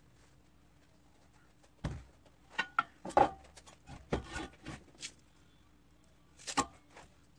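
Knocks, clunks and scrapes of a car battery being set down into a plastic battery tray on a steel workbench, then a short clatter near the end as a tape measure is pulled out across it.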